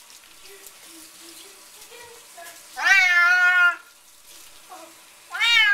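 Domestic cat meowing loudly twice while being bathed in a sink: two long, drawn-out meows that rise then waver, the first about three seconds in and the second starting near the end.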